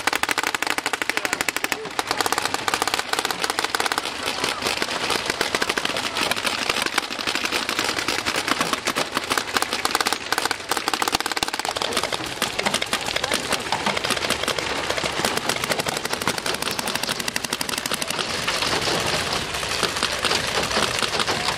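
Paintball markers firing in rapid, continuous strings: a dense stream of sharp pops, several guns at once, with no break.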